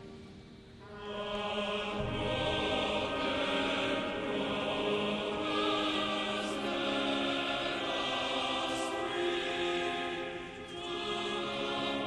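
Choir singing a slow sacred piece in long held chords, with a short break about half a second in and another shortly before the end.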